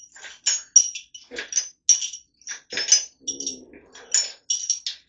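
Small metal engine parts clinking and tapping against each other and on metal as they are handled during a small-block Chevy 350 teardown: a quick run of sharp, ringing clinks, several a second. A short low voice-like sound comes about three seconds in.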